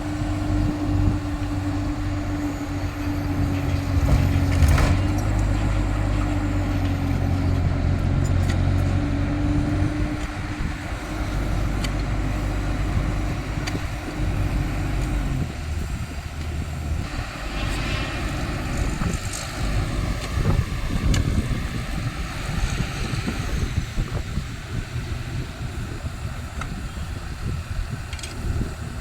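Caterpillar excavator's diesel engine running, with a steady whine over the engine note that drops away about halfway through. There is one sharp knock about five seconds in.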